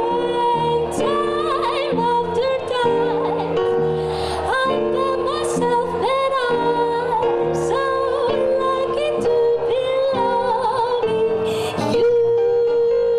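Jazz vocal trio playing live: a woman sings long, wavering held notes over electric bass and piano.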